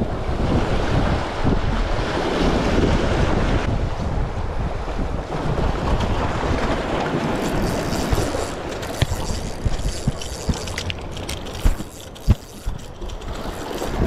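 Wind buffeting the microphone over small waves washing against jetty rocks, a steady rushing noise. In the second half a few light clicks, and two sharp knocks near the end.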